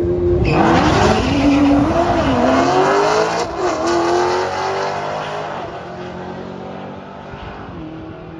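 Two drag cars launching down the quarter mile, engines revving hard and rising in pitch, dropping briefly at each gear shift. The sound is loudest over the first few seconds, then fades steadily as the cars run away down the strip.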